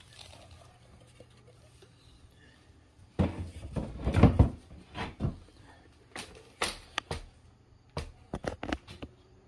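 A cluster of knocks and scraping, followed by a scatter of single sharp knocks and clicks, as objects are handled and set down.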